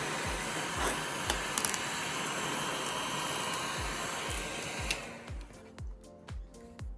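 Heat gun blowing hot air steadily to soften and melt contact material off a resin table, switched off about five seconds in, with a few light clicks along the way. Background music with a steady beat plays underneath.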